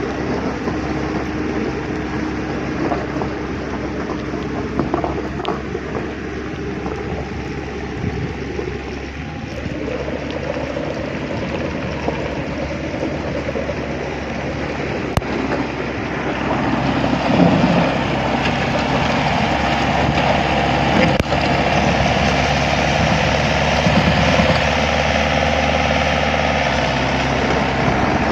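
A motor running steadily with mechanical clatter and rattling, growing louder and noisier about halfway through.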